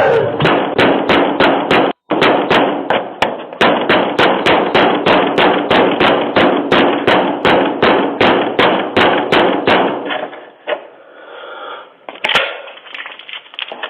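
Rapid, steady banging, about four blows a second, like a fist or object pounding on a door; it stops about ten seconds in, and one sharper bang follows near the end.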